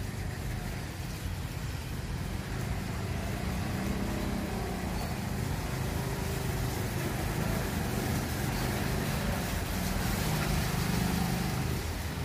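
Distant diesel train approaching, its engine a low hum that slowly grows louder over a steady low rumble.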